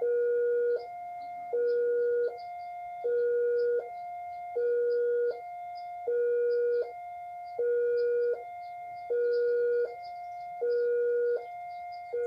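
Railroad level-crossing warning signal sounding a two-tone alarm: a lower and a higher electronic tone alternate steadily, each held about three-quarters of a second, the lower one louder.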